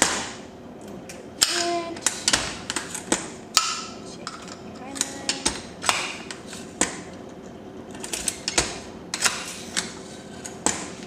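Shotshell reloading press worked at a normal pace through a full load cycle: irregular sharp metal clicks and clunks as the handle is pulled down, the charge bar is slid across to drop powder and shot, and the hull is pressed and crimped.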